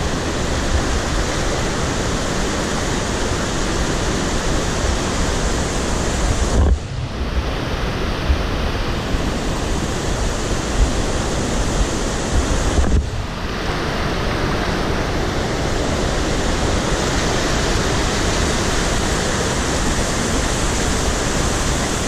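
Mountain river water rushing over rocks and shallow rapids right at the microphone, a steady loud wash that briefly dips and goes duller twice, about seven and thirteen seconds in.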